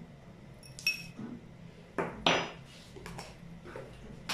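Metal spoon clinking and knocking against small dishes on a table: several separate taps, the first about a second in with a short ringing ping, the loudest a little past two seconds in.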